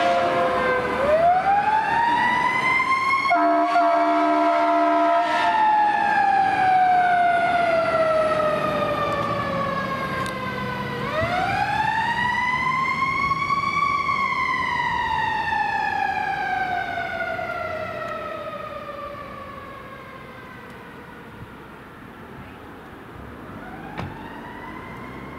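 Fire ladder truck's siren wailing, each time rising quickly and then winding slowly down, three cycles in all. A steady horn blast comes near the start and again about three seconds in. The sound fades as the truck moves away.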